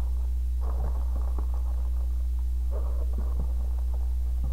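Steady low hum, with the faint rustle and clicking of plastic-bagged model kit parts being handled in their cardboard box in two short spells, about a second in and about three seconds in.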